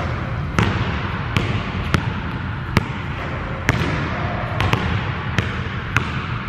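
Basketballs bouncing on a hardwood gym floor: single sharp bounces at irregular intervals, about one a second, over a steady low room rumble.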